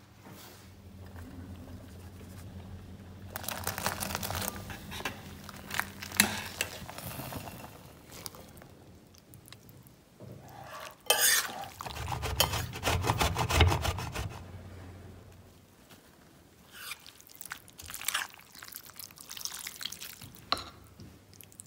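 Kitchen cooking sounds: a utensil clinking and scraping against a pot and a ceramic bowl as cooked pasta, potatoes and chard are stirred and tossed, with wet squelching of the food. A steady low hum runs through the first six seconds, and the loudest clattering comes about twelve to fourteen seconds in.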